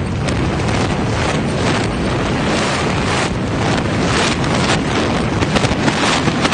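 Building demolition by implosion: a loud, continuous rumble of collapse and falling debris, broken by many sharp cracks that crowd together near the end.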